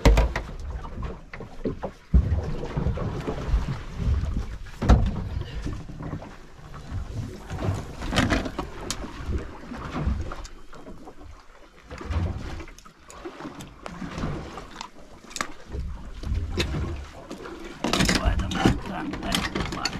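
Handling noise on a small fibreglass boat's deck: irregular knocks and thumps as a large fish just landed is moved about and unhooked, over wind gusting on the microphone.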